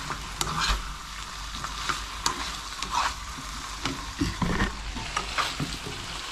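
Lamb pieces sizzling in a frying pan while a utensil stirs them, scraping and clicking irregularly against the pan.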